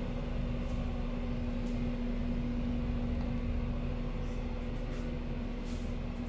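Steady hum of a room ventilation unit: a rushing hiss with a low, even tone underneath, unchanging throughout, with a few faint light rustles.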